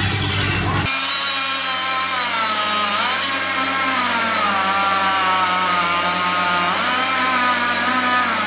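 A chainsaw engine running hard, its pitch steady but wavering and twice sagging briefly before climbing back, as when the saw is working in a cut. Background music plays for about the first second before the saw comes in.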